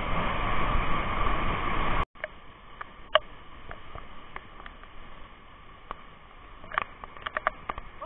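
Shallow rocky stream rushing loudly over rapids, cut off suddenly about two seconds in. After that a much quieter haze of water with scattered short clicks and a few brief chirps.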